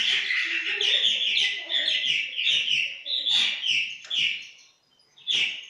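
Recording of swallows twittering: a fast, continuous run of chirps and warbling notes, with a short pause near the end.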